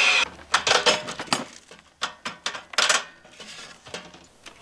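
A cordless drill stops just after the start, followed by a string of light metal clanks and clinks as the metal grill pan is handled on its steel tray.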